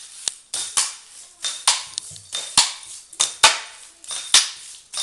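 Hard objects clattering and knocking: about a dozen sharp, irregular clacks, some of them ringing briefly.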